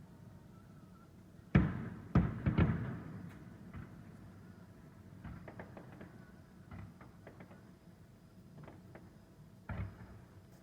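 Fireworks shells bursting: a sharp bang about a second and a half in, the loudest, quickly followed by three more, then scattered smaller pops and crackles and one more bang near the end.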